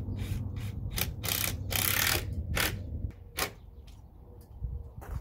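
A power drill/driver driving screws into a wooden 2x2 brace in several short bursts, the longest about two seconds in. Then a few sharp clicks and knocks as the driving stops.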